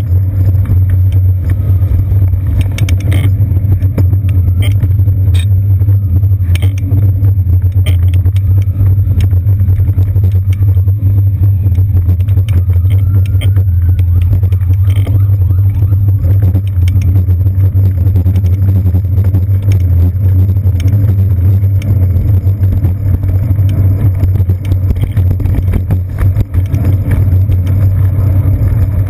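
Steady, heavy low rumble of a bicycle riding through city traffic, picked up by a seat-post-mounted action camera in its housing, with frequent small rattles and clicks as the bike goes over the pavement.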